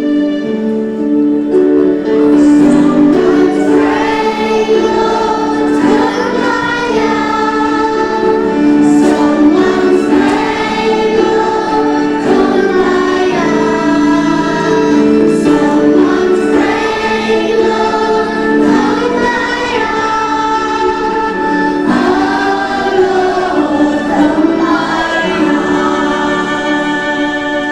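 A group of voices singing a hymn-like song over steady instrumental accompaniment.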